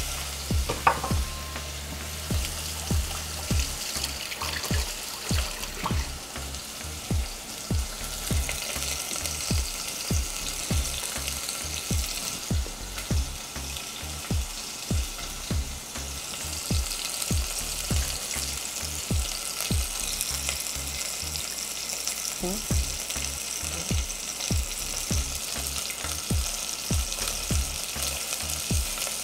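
A chicken thigh sizzling as it sears in hot olive oil in a stainless steel pot: a steady frying hiss with a short, soft low thud about every half second.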